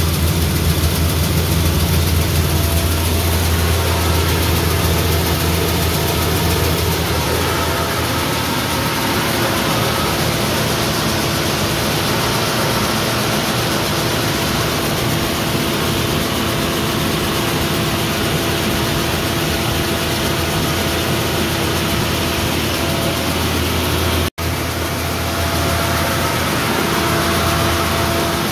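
Ihwa home rice milling machine running steadily while hulling and polishing rice, a steady low hum under a broad rushing noise. The sound drops out for an instant near the end.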